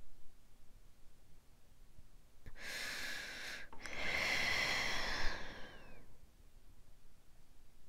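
Breath blown right onto a small clip-on microphone held at the mouth: two breathy rushes about two and a half seconds in, a short one of about a second and then a longer one of about two seconds.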